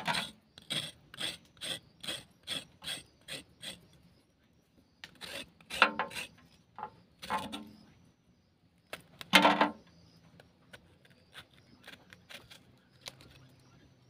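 Knife blade scraping the ridges off a ridge gourd (luffa), in quick short strokes about two and a half a second, then a few longer, louder strokes; after about ten seconds only faint scrapes.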